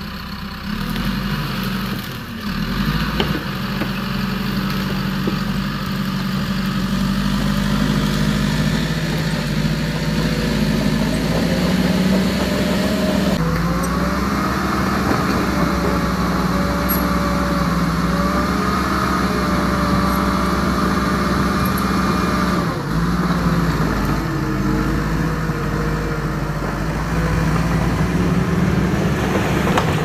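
Remote-control toy bulldozer running steadily, its small electric motors driving the tracks as it pushes loose soil with its blade.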